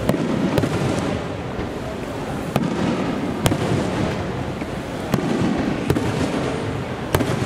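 Aerial firework shells bursting overhead: about seven sharp bangs at uneven intervals, over a steady background noise.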